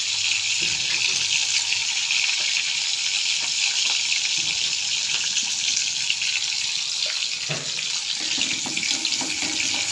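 Green chilli, shallots, garlic and curry leaves sizzling in hot oil in a metal kadai on a gas stove: a steady crackling hiss as they fry down. A wooden spatula goes in to stir near the end.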